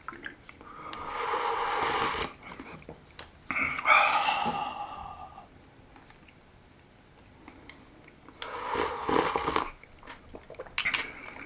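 A person slurping hot miso soup from a bowl, once near the start and again about eight seconds in, with a loud, long breathy exhale after the first sip.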